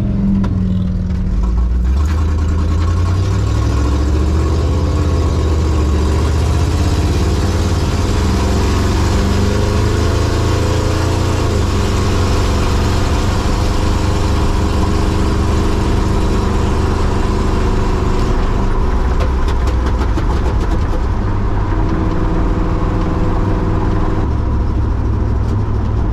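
1954 Chevrolet 3100 pickup's straight-six engine running, its pitch rising a couple of seconds in and shifting in steps for several seconds before settling steady.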